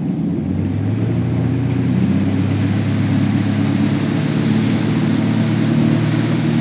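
Ski boat's engine at full throttle, loud and steady, hauling a barefoot water skier up out of the water, with water rushing and spraying behind the boat.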